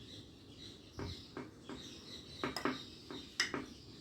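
A spoon clicking and knocking against a bowl while spreading chocolate ganache, several short light knocks, mostly in pairs, starting about a second in. Faint bird chirps in the background.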